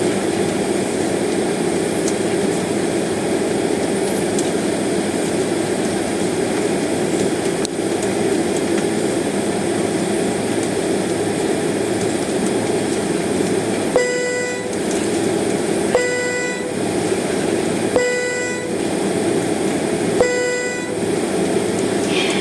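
Steady jet engine and cabin noise inside an airliner taxiing onto the runway. In the second half, four short, steady tones sound about two seconds apart.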